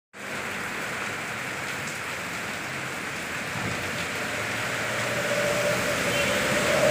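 Steady rain falling, an even hiss that grows slightly louder. A faint steady hum joins in near the end.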